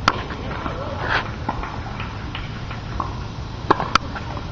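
Tennis ball knocks on a hard court: a few short, sharp pops from racket strikes and ball bounces, the loudest two close together near the end, over a steady outdoor background hum.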